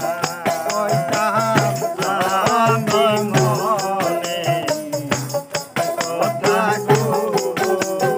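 Baul folk song: a man singing a wavering melody, accompanied by a hand-shaken rattle-type percussion instrument keeping a quick steady beat and a repeating low drum-like pulse.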